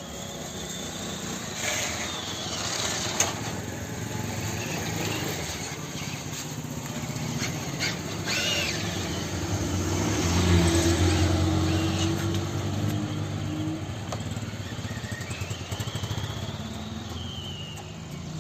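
A King Cab pickup's engine running under load as the truck moves off. It grows louder toward the middle, then eases off.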